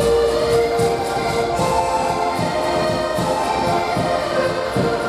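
An ensemble of diatonic button accordions (Portuguese concertinas) playing together in sustained chords at a steady level.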